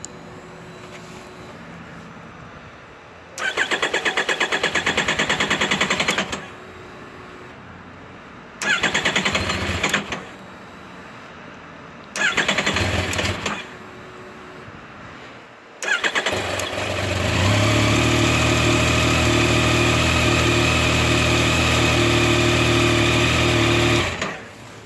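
Yamaha FJ-09/MT-09 Tracer's 847 cc three-cylinder engine being cranked on the electric starter three times without firing. On the fourth crank it catches and runs steadily for about seven seconds, then is switched off. This is a hard start, which the owner puts down to fuel vapour from the charcoal canister.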